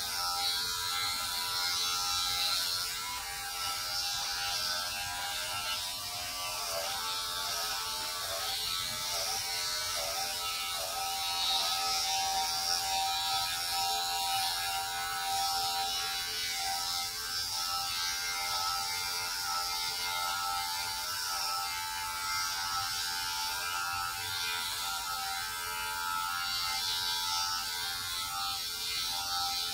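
Electric hair clippers running with a steady hum, shaving the hair off a man's head.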